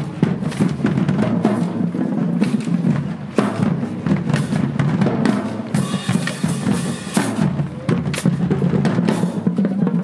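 High school marching band's drumline playing, snare and bass drums beating a dense, driving pattern.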